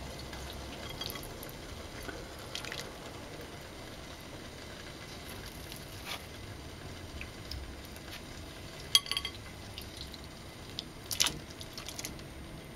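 Pork brains being put into a stainless steel pot of hot water: soft liquid sounds over a low steady background, with a few short sharp clicks and splashes, two louder ones in the second half.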